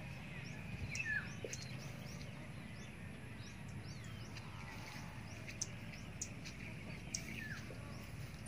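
Outdoor garden ambience: scattered short bird chirps and calls, heard all through, over a steady low background rumble.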